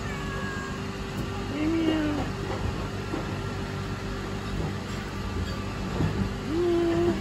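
Tortoiseshell cat meowing twice, two short low calls about five seconds apart, over a steady machine hum.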